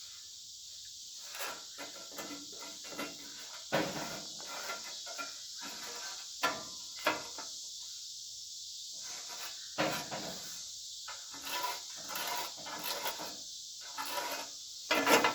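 Sheet-metal parts and a straight edge being handled while a cut line is marked: scattered light clicks, taps and scrapes, a little louder near the end, over a steady high hiss.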